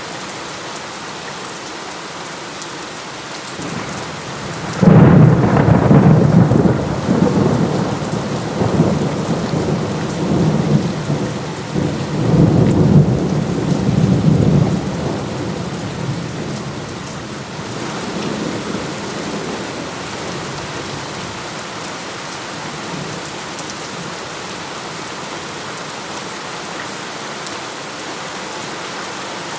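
Heavy rain falling steadily, with a thunderclap breaking in suddenly about five seconds in. The thunder rolls on in several swells for about ten seconds, then dies away back into the rain.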